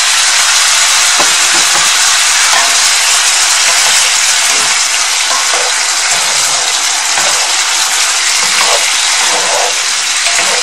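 Chicken pieces sizzling steadily in hot oil in a cast-iron skillet, stirred with a wooden spatula, with faint scrapes now and then.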